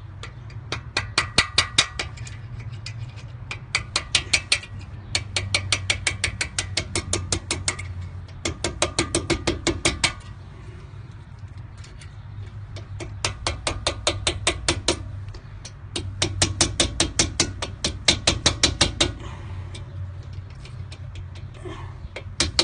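Quick light hammer taps on a flat screwdriver, about six a second in several runs with short pauses. The metal rings with each tap as the taps drive the pad-retaining rod out of a Lexus IS 350 front brake caliper. A steady low hum sits underneath.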